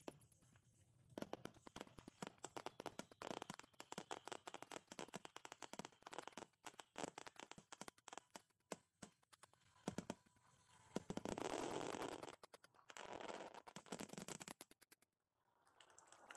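Display fireworks finale: a rapid string of shell bursts and crackling stars, with two denser rushes of crackle about eleven and thirteen seconds in, then a sudden drop near the end.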